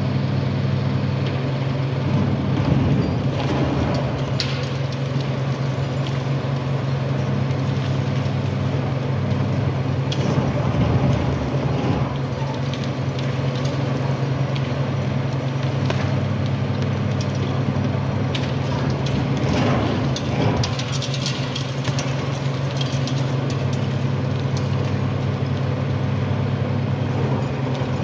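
Caterpillar high-reach demolition excavator at work: its diesel engine runs with a steady hum while the crusher jaw on the long boom bites into the concrete of the tower's top floor, giving irregular cracking and crunching. The crunching is heaviest about ten and twenty seconds in and again near the end.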